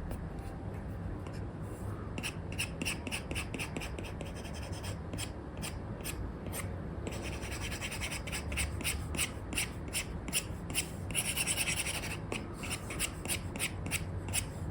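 Apple Pencil 2 with an Elecom replacement nib scratching across a paper-like screen film on an iPad in quick, short sketching strokes. The strokes start about two seconds in and come several a second, packed tighter in a couple of stretches of rapid hatching, over a faint steady hum.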